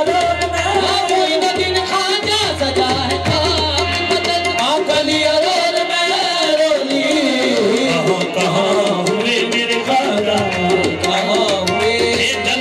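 Live qawwali music: singing over tabla drumming and a steady held accompaniment.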